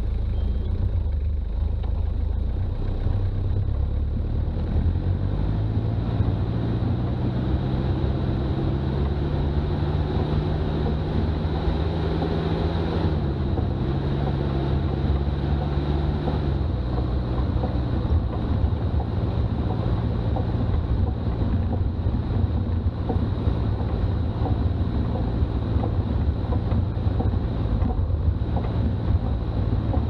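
Toyota Land Cruiser BJ40's diesel engine running steadily while driving, under road and wind noise. The engine note climbs about five seconds in, then drops back in steps around thirteen and sixteen seconds.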